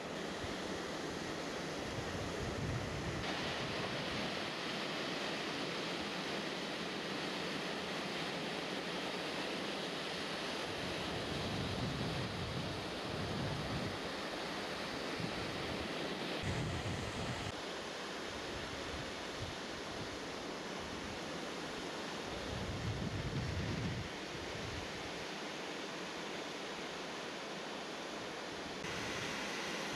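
Ocean surf breaking and washing in, a steady rushing. Every few seconds wind rumbles against the microphone.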